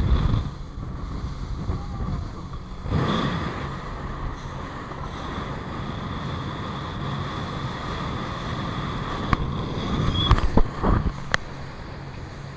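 A dive boat's engine running steadily under way, with water rushing past the hull and wind buffeting the microphone in gusts. A few sharp knocks come near the end.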